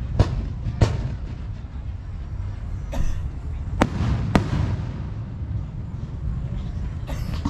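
Aerial firework shells bursting: two pairs of sharp bangs, one pair near the start and one about four seconds in, each pair about half a second apart, with a crackling hiss around three seconds and again near the end.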